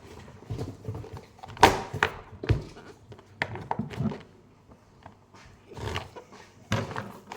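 A person blowing their nose in a few short noisy blasts, loudest about one and a half seconds in, among thumps and handling noises.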